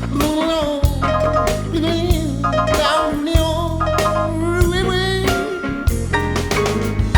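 Blues music: a bending, sliding lead melody over a steady bass line and drum beat.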